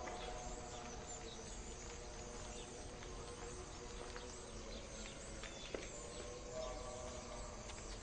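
Quiet drama-soundtrack ambience: faint held background-music tones over a soft steady hiss, with one small click a little before six seconds in.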